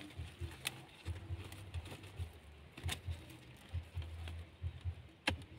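Wire-mesh snake trap being handled: light clinks and rattles of the mesh, with a few sharp clicks, the loudest a little before the end, and dull low bumps from handling.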